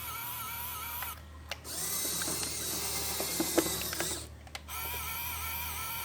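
A small motor-driven mechanism whirring, with gear clicks and ratcheting, stopping briefly twice.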